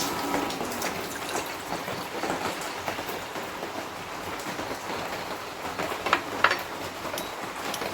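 Milk being poured into a pot on an induction cooker: a steady splashing stream of liquid, with a couple of sharp clinks about six seconds in.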